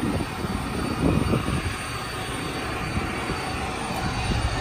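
Steady low rumble of an idling diesel semi-truck engine, with a faint steady whine over it.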